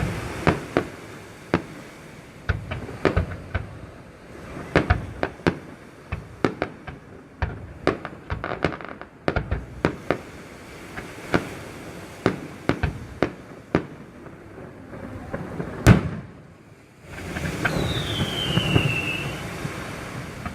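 Fireworks display: a rapid, irregular string of sharp bangs and crackles, with one especially loud bang about three-quarters of the way through. Near the end, after a brief lull, a high whistle falls in pitch over a continuous rumble.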